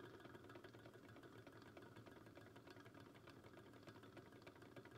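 Sony TC-250 reel-to-reel tape deck running, its single motor and reels winding through the test tape's long leader. It is faint: a steady low hum with a fast, fine ticking.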